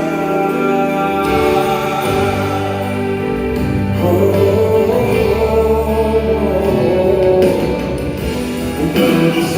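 Brazilian gospel song playing: singing over sustained band and keyboard chords.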